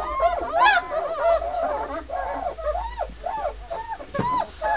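Three-week-old White Swiss Shepherd puppy whining and yelping in a run of short, high cries, each rising and falling in pitch.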